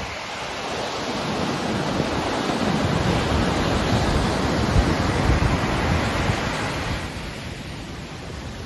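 Ocean surf breaking and washing up a sandy beach, the rush of foam swelling through the middle and easing off near the end, with wind buffeting the microphone.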